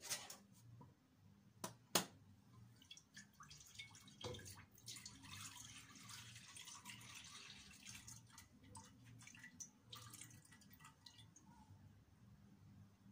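Milk poured from a plastic measuring jug into a stainless steel pot: a steady splashing stream starting about five seconds in and lasting about six seconds. A few sharp knocks come before it.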